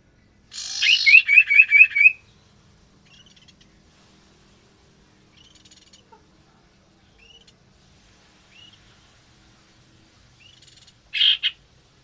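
Common iora (cipoh) calling: a loud run of about five quick rising chirps over a harsh rasping note in the first two seconds, then a few soft scattered chirps, and a short harsh double call near the end.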